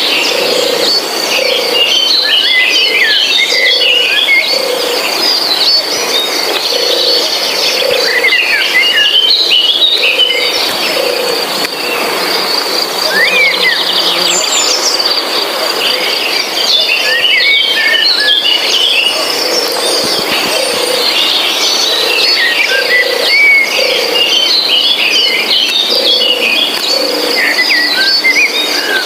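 Forest insects with a steady high buzz, birds chirping in short bursts every few seconds, and a low pulsing call repeating about once a second.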